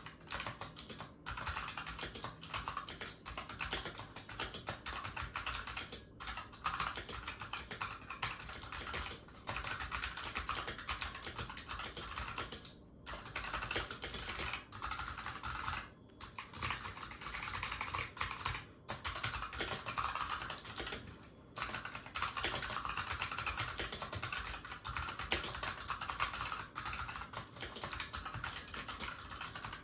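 Rapid, continuous typing on a Razer Huntsman Mercury Edition keyboard with clicky purple optical switches, each keystroke a sharp click, with a few brief pauses.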